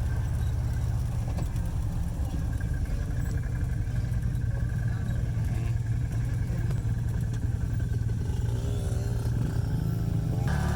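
Off-road vehicle engine running steadily with a low, even rumble.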